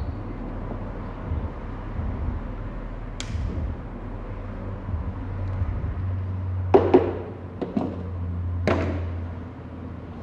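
A few sharp clicks and snaps from hands working wiring and tools under a car dash: a single click about three seconds in, then a quick pair and two more clicks further on, over a low steady hum.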